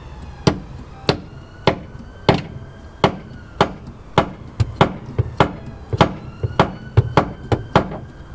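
Hammer repeatedly tapping a deep bolt extractor socket down onto a rounded nut, metal on metal, to make the socket bite. There are about eighteen sharp strikes, roughly one every half second, coming faster in the second half.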